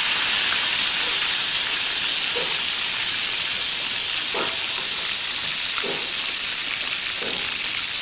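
Whole tilapia coated in egg and flour deep-frying in hot oil in a wok: a steady, dense sizzle, easing slightly over a few seconds, as the coating turns crisp.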